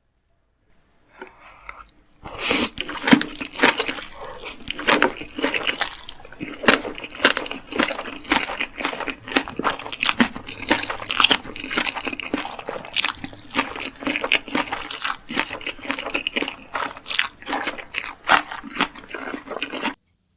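Close-miked eating sounds: a person chewing crunchy food, a dense run of crisp crunches that starts about two seconds in and cuts off suddenly just before the end.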